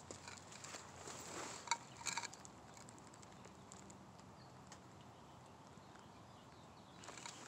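Faint outdoor background with a few light clicks and rustles in the first two seconds or so, then only a soft steady hiss.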